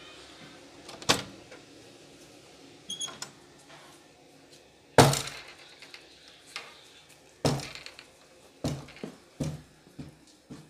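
A carved wooden door being handled and opened: a sharp knock about a second in, a brief metallic jingle about three seconds in, the loudest bang about five seconds in, then a run of irregular thuds.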